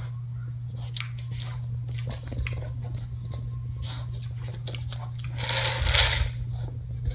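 Potbellied pig chewing and crunching food nosed out of a treat-dispensing ball, with small clicks and scrapes, over a steady low hum. A louder rushing sound comes about six seconds in.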